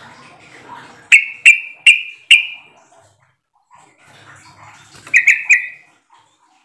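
Yellow-vented bulbul (trucuk) calling: four loud, sharp notes about 0.4 s apart, a pause, then a quicker run of notes about five seconds in.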